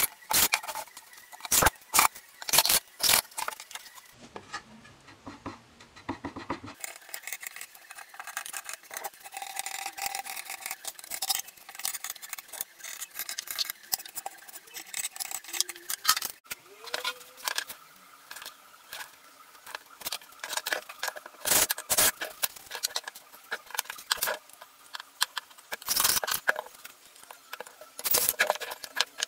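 Pallet-wood boards and blocks knocked and set down on a workbench by hand, a run of irregular sharp knocks with light scraping and clinking between them.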